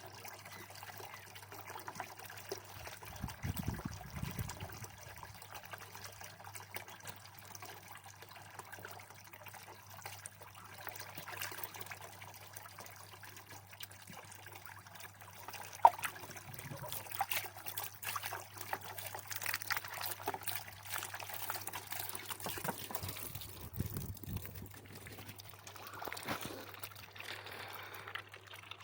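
Water trickling and pouring as it is poured over poultry, with a single sharp click a little past halfway.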